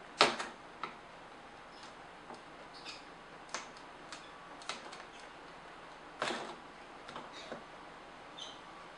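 Irregular sharp plastic clicks and snaps from the housing of a Nikon SB900 speedlight as its heavily glued side cover is pried off with a screwdriver. The loudest snap comes about a quarter second in and another just past six seconds, with smaller ticks between.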